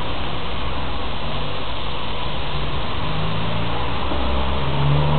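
Steady rush of wind and rain, with a low engine-like hum that grows louder near the end.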